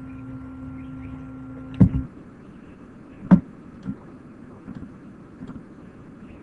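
A steady low hum cuts off about two seconds in with a sharp knock. A second loud knock comes about a second and a half later, then a few faint clicks.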